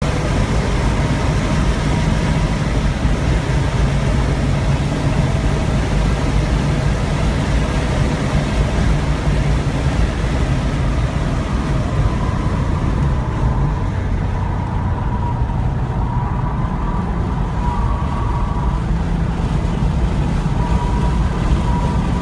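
Inside the cabin of a 2001 Porsche 911 at track speed: the flat-six engine runs hard under loud wind and road rush. About twelve seconds in the car brakes from straightaway speed for a corner, and the rushing noise eases for several seconds before building again.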